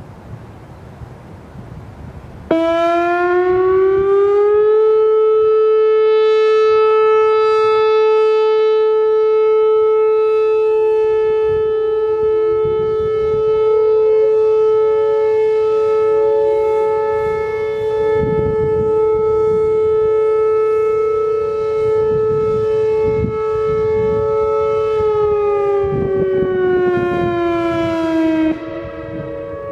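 Whelen WPS-4004 electronic outdoor warning siren sounding a steady alert tone. It comes on suddenly about two and a half seconds in, rises in pitch over about two seconds to a held tone near 435 Hz, then winds down in pitch and stops near the end.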